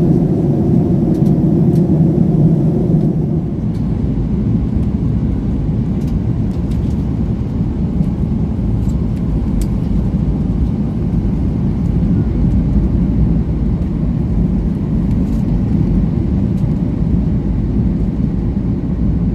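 Steady rumble of airflow and the CFM LEAP-1B engines inside the cabin of a Boeing 737 MAX 8 in flight, easing slightly about three seconds in.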